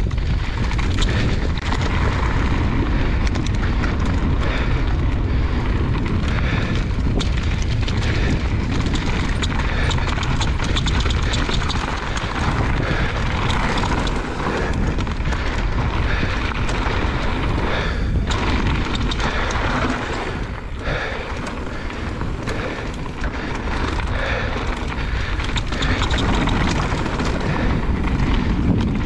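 Wind rushing and buffeting over the microphone of a camera carried by a mountain biker riding downhill, mixed with the rumble and rattle of the bike over the dirt trail. It eases a little about two-thirds of the way through.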